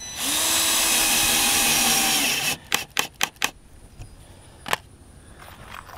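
Cordless drill/driver driving a screw through a door hinge into wood: the motor spins up and runs steadily for a little over two seconds, then stops. A quick run of four or five sharp clicks follows, and one more about a second later.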